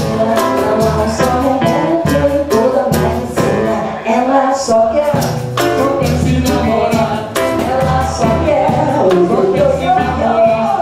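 Live Brazilian xote band playing: trombone carrying the melody over a surdo bass drum pulse, pandeiro jingles and guitar.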